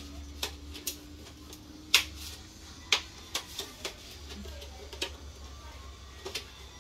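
Irregular sharp clicks and taps of cookware being handled while a baking pan is got ready, the two loudest about two and three seconds in, over a low steady hum.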